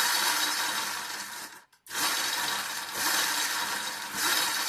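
A 12-volt, 27-amp DC motor on an electric-converted mini bike spinning the raised rear wheel through the chain, with a rattly chain-and-sprocket clatter. It cuts out abruptly about a second and a half in, then runs again, surging a few times.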